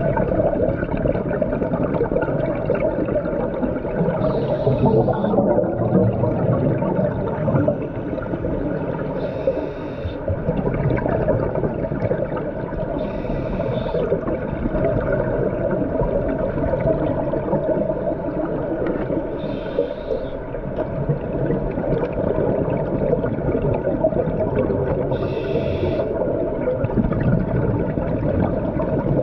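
Underwater sound of a scuba dive: a steady, dense low rumble of water and regulator bubbles, with a short hiss recurring about every five seconds in time with the diver's breaths.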